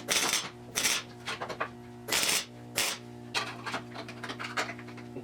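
Hand tools working on steel car-frame sections: short scrapes and metallic clatters about once a second, then a run of quicker light clicks near the end, over a steady low hum.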